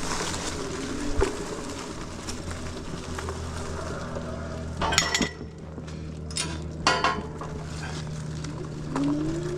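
Electric bike riding over a dirt trail: a steady motor hum under the crunch and hiss of the tyres, with a few sharp metallic clinks and rattles as the bike jolts over bumps about halfway through. Near the end there is a rising whine.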